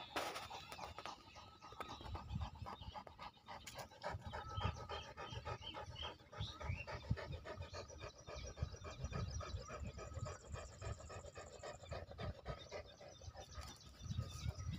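A large mastiff-type dog panting rhythmically with its mouth open and tongue out.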